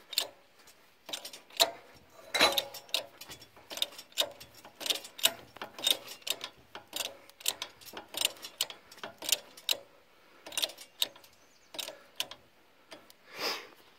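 Hydraulic toe-board jack on a sawmill being cranked by hand, giving irregular metallic clicks and clanks about two a second as the rollers lift the log toward the blade.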